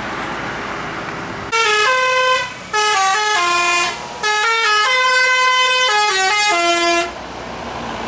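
A bus's Basuri telolet musical horn playing a quick tune of stepped notes in three phrases, starting about a second and a half in and stopping about a second before the end. Bus engine and road noise underneath and before it.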